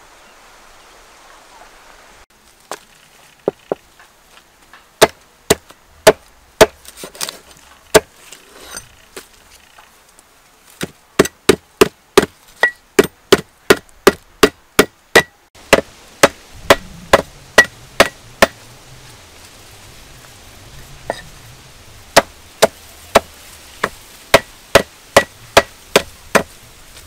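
A cleaver chopping lemongrass stalks on a thick wooden block, in sharp single strokes. The strokes come in quick runs of about three a second, with pauses between them.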